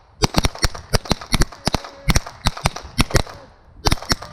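A rapid, uneven string of pistol shots, about eighteen in three and a half seconds, too many and too close together for one gun: several shooters firing at once on the fire command. The shooting pauses briefly, then two last shots come near the end.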